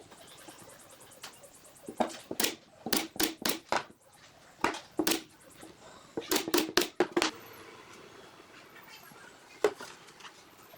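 Irregular sharp knocks and clatters, some in quick clusters and some single, with quieter stretches between.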